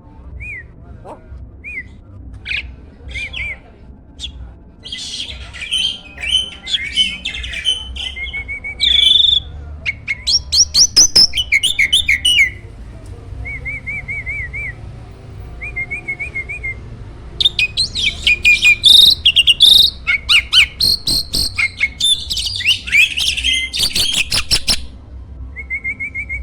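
A jalak starling singing a loud, varied song. It alternates busy chattering phrases and rapid runs of clicking notes with short repeated trills, with quieter gaps between the bursts.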